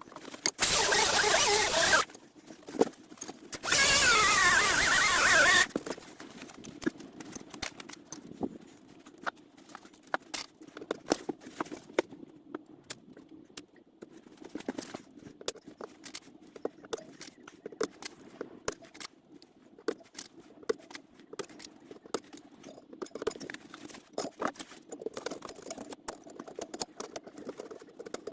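Two short bursts of a power tool, about two seconds each, near the start. Then irregular light clicks and taps of hand tool work.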